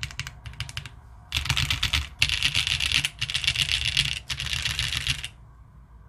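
Typing on a top-mount Fukuro mechanical keyboard with stock Leobog Brown switches, a polycarbonate plate and GMK Greg ABS keycaps. Short runs of single keypresses give way about a second in to fast two-handed typing, a dense clatter with two brief breaks, which stops near the end.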